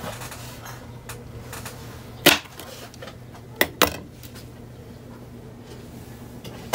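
Kitchen knife cutting a banana in half on a tabletop: a sharp knock about two seconds in as the blade meets the table, then two quicker knocks about a second and a half later, over a steady low hum.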